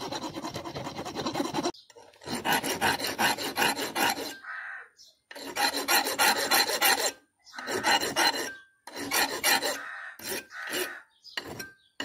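Hand file rasping back and forth over a small metal lock part clamped in a bench vise. It makes a series of long, gritty strokes with short pauses between them, turning into shorter, quicker strokes near the end.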